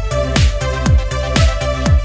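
Electronic dance background music with a steady kick drum, about two beats a second, under held synth tones and crisp high percussion.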